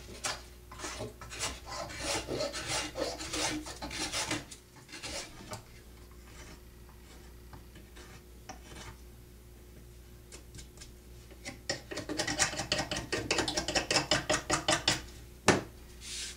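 A jackknife shaving the bark off a fresh hardwood stick: runs of quick scraping strokes, quieter for a few seconds in the middle, then a fast run of strokes and one sharp knock near the end.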